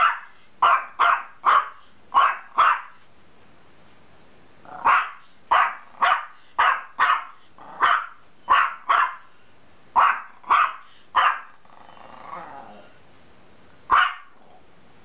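A small Yorkshire terrier barking in runs of sharp, high yaps, about two a second, with short pauses between runs. A brief faint growl comes near the end, then one last bark.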